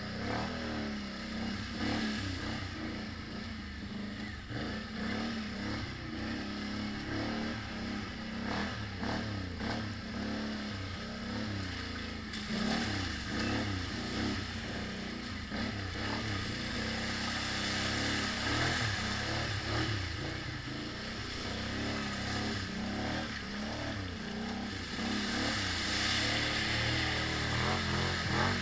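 ATV engine revving up and down as the machine is ridden over a muddy trail, its pitch rising and falling continually.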